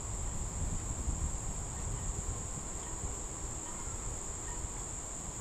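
Steady high-pitched insect chirring, unbroken throughout, over a low background rumble.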